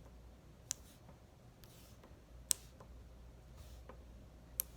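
Wax crayon tapped hard onto paper to make dots, giving a few sharp, light clicks about two seconds apart.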